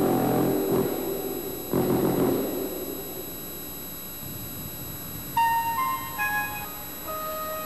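Film-score music: two deep, brass-like blasts, then about five seconds in a quick run of stepped electronic keyboard notes, and near the end a long held tone.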